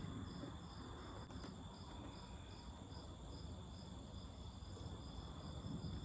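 Faint, high chirping of an insect, most like a cricket, repeating evenly at about three chirps a second.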